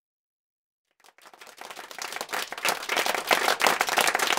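Audience applause that fades in about a second in and grows to full strength, many hands clapping at once.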